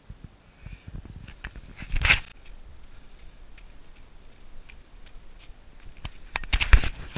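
Runners' footsteps crunching on a trail, about three steps a second. Two loud rustling bursts, about two seconds in and again near the end, are the loudest sounds.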